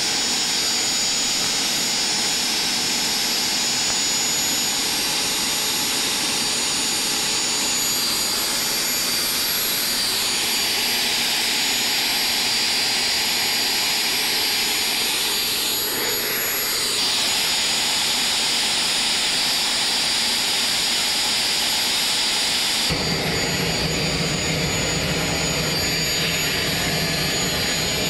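Aérospatiale Gazelle helicopter's Turbomeca turboshaft engine running steadily on the ground, a jet-like rush with a high whine. About 23 seconds in, a deeper rumble joins in.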